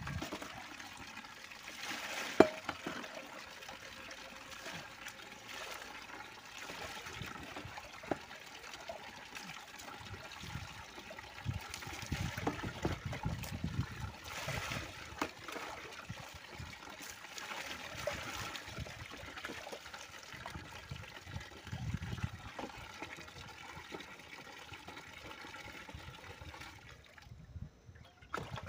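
Water running from a tank tap onto a dog and splashing into a plastic tub as a hand rubs the dog's wet coat, with a sharp knock about two seconds in. The water sound drops away near the end.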